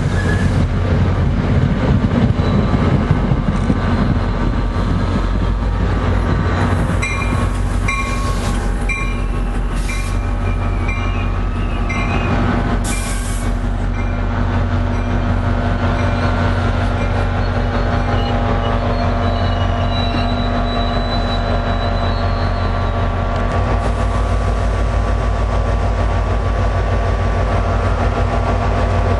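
NJ Transit diesel commuter train passing close by: a steady low locomotive engine hum under the clatter of wheels on rail and squealing wheels, with some short knocks and repeated brief high tones around the middle.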